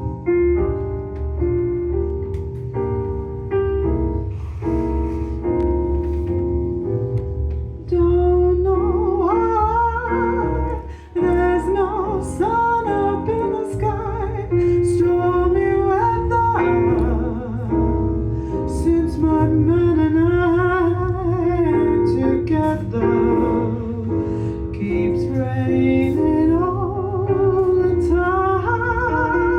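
Live band music: an instrumental introduction of repeated chords over a deep bass line, then a voice singing a slow melody with vibrato from about eight seconds in.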